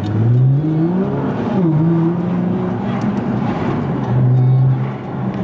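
Nissan GT-R R35's twin-turbo V6 heard from inside the cabin, its pitch rising as the car accelerates, dropping sharply at an upshift about a second and a half in, then holding a steady, lower note.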